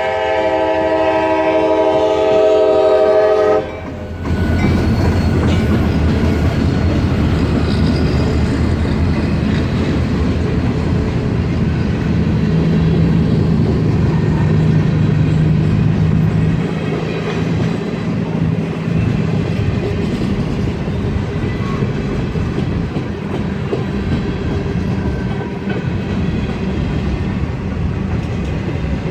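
A diesel locomotive horn sounds a loud chord and cuts off about four seconds in. Then a freight train rumbles steadily across the crossing, its wheels clattering over the rail joints.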